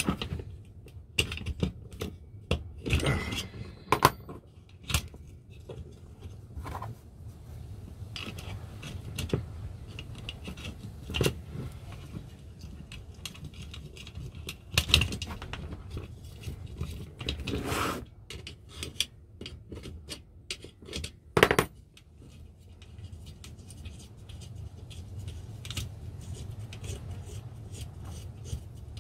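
Metal parts of an old Salter spring milk scale's mechanism clicking, clinking and scraping as it is taken apart by hand, with a few sharper knocks scattered through, over a low steady hum.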